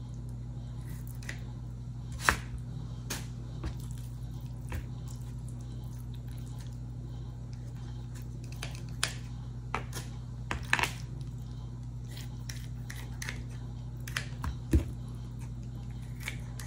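Kitchen scissors snipping raw chicken thighs into bite-sized pieces: scattered short snips and clicks, the sharpest a couple of seconds in, over a steady low hum.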